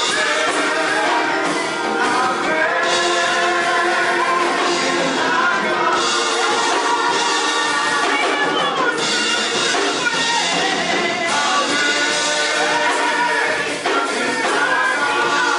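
A gospel praise team of several voices singing into microphones over live band accompaniment with drums.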